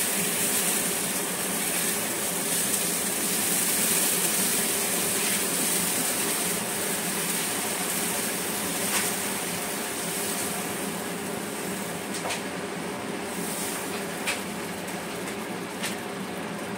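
Dosa batter sizzling on a hot oiled iron tawa: a steady hiss that starts as the batter goes on and slowly eases off, with a few faint clicks in the second half.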